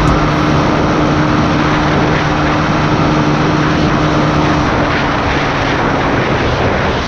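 Suzuki Raider 150's single-cylinder four-stroke engine running steadily at cruising speed, under heavy wind rush over the microphone.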